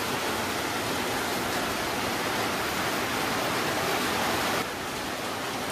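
Rain falling on a corrugated metal roof: a steady, even hiss that drops slightly in level near the end.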